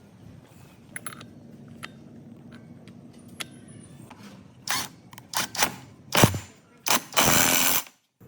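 Workshop tool noises: a few light clicks over a low hum, then a series of short, loud noisy bursts, the last almost a second long and cutting off abruptly.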